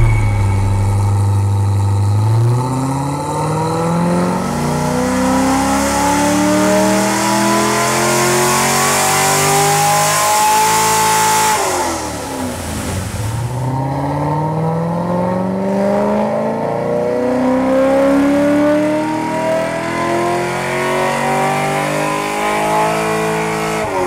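Corvette C6 Grand Sport's 6.2-litre V8, breathing through long-tube Kooks headers, an X-pipe and a B&B exhaust, pulling under load on a hub dyno. The revs climb steadily for about eleven seconds, drop back sharply, then climb again through a second long run and fall off near the end.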